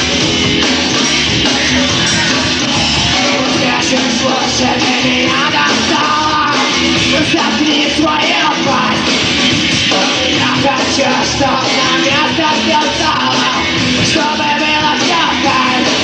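Rock band playing a punk-style song live, loud and dense, with shouted singing over it.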